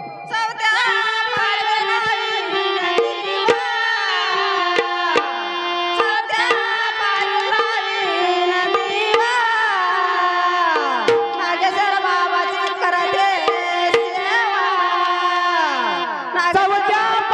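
Bhajan music: tabla playing under a woman singing, her long notes gliding up and down over steady held tones.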